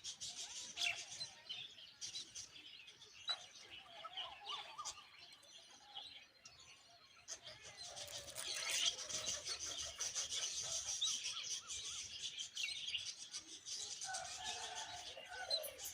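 Myna nestlings begging with rapid, high chirps that grow louder about halfway through; lower bird calls join near the end.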